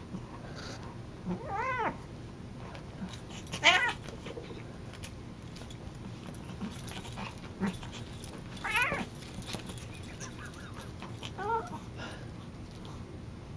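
A cat yowling four times in short cries that rise and fall in pitch, the loudest about four seconds in and the last one fainter, during a wrestling scuffle between two cats.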